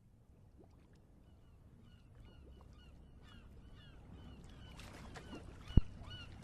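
Birds calling: many short, hooked calls repeating several times a second, growing steadily louder, with a single sharp click near the end.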